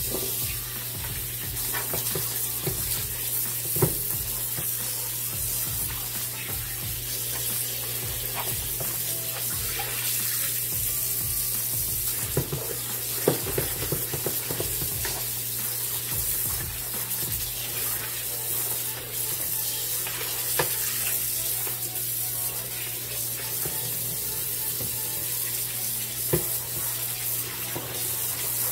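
Kitchen tap running in a steady stream onto raw oxtail pieces in a plastic colander in the sink, water splashing as hands rub the meat to rinse off the blood. A few small knocks come through now and then.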